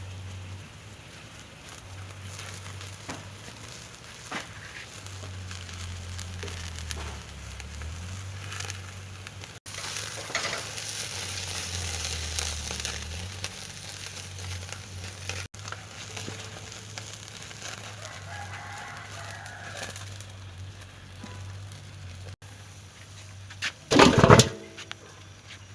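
Rooster crowing: a faint crow about two-thirds of the way through, then a short, loud crow near the end, over a steady low hiss with scattered light crackles.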